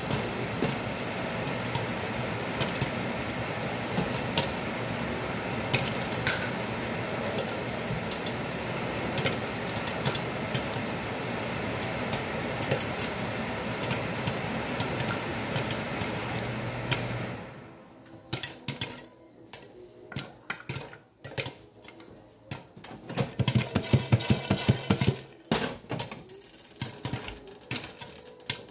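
Popcorn kernels popping in a covered pan without oil. For about the first seventeen seconds the popping is rapid and dense over a steady hiss. The noise then drops suddenly, leaving scattered pops with a short flurry later.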